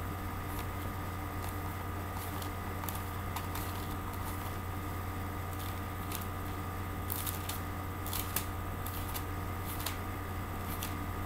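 Pages being leafed through in short, scattered rustles while searching for a passage, over a steady low electrical hum.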